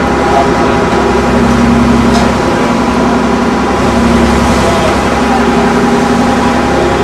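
Engine running steadily at a constant speed, a loud, even hum that does not change.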